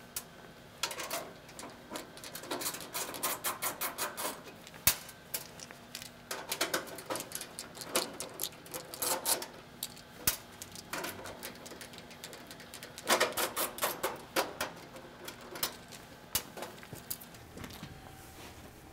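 Metal clicks and ticks from a nut driver turning out the screws that hold a dryer's front bulkhead, with screws and tool tapping against the sheet-metal cabinet. The clicks come in irregular clusters with short pauses between them.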